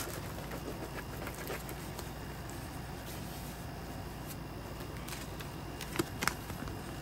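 Faint paper rustling and handling noise as a rolled diamond-painting canvas is handled, with two sharp ticks about six seconds in, over a steady low hum.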